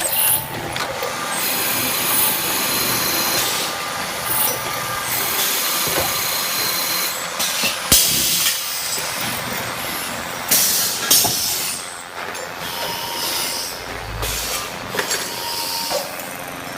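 Servo dual-spindle drilling and tapping machine running through its cycle: steady machine running noise with repeated short bursts of hissing and scattered clicks.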